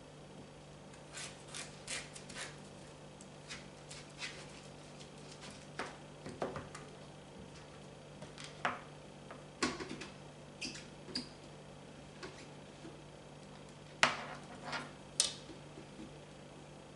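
Kitchen knife cutting through butternut squash on a cutting board: scattered, irregular knocks and scrapes of the blade against the board, over a steady low hum. The two loudest knocks come near the end.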